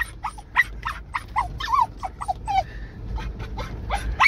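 Russian spaniel whining and yipping in a rapid string of short, high-pitched cries, some falling in pitch, about three or four a second, in excitement at the deer running off. A steady low rumble of the moving car lies underneath.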